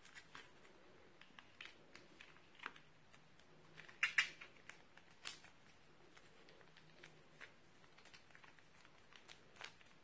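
Plastic piping bag crinkling and clicking as it is squeezed to press slime out, in faint scattered crackles, with a louder brief crackle about four seconds in.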